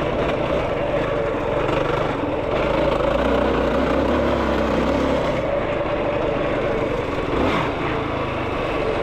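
Yamaha YFZ450R sport quad's single-cylinder four-stroke engine running steadily as the quad is ridden, with a brief falling pitch about seven and a half seconds in.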